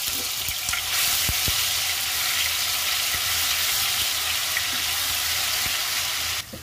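Ginger-garlic paste sizzling loudly in hot oil in a kadhai, with a few light taps of the spatula as it is stirred. The sizzle drops away sharply near the end.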